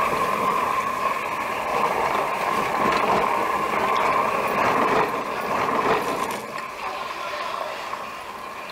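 Garden hose spraying water onto harvested aloe vera leaves in plastic crates, a steady splashing hiss that eases off somewhat about two-thirds of the way through.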